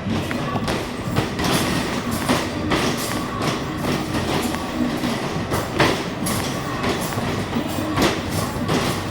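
Basketball arcade shooting machine in play: basketballs thudding against the backboard and rim over and over, over the steady rumble of balls rolling back down the return ramp.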